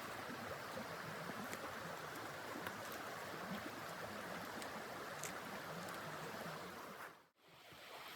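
Steady rushing noise with a few faint clicks. It dips away to almost nothing about seven seconds in, then returns.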